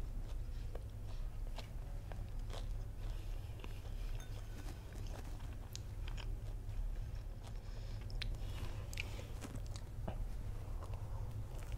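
Close-miked chewing of a fried sausage on a stick crusted with diced potato, with crisp crunches and small wet mouth clicks scattered irregularly throughout.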